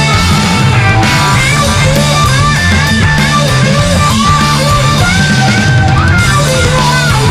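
Loud rock music from a full band: electric guitar, bass guitar and drum kit, with a melody line above that bends and slides in pitch.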